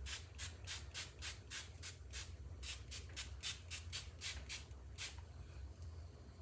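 A spray bottle of leak-detector solution being squirted onto gas pipe fittings in quick short spurts, about four or five a second, pausing briefly a little past two seconds and stopping after about five. A steady low hum runs underneath.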